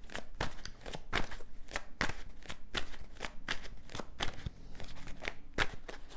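Tarot cards being shuffled by hand: an irregular run of quick papery snaps, about three or four a second.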